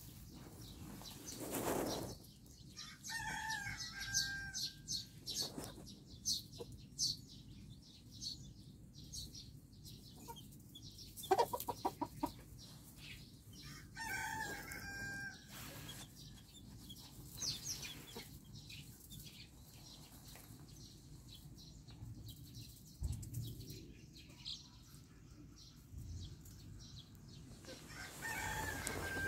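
Silkie chickens clucking and their chicks peeping in short high calls scattered throughout, with a quick run of loud pulses about a third of the way in.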